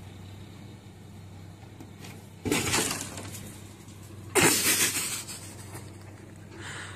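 Two sudden crunching, scraping noises about two seconds apart, each fading within a second, with a fainter one near the end: crusted icy snow on a car crunching and scraping as a cat moves across it.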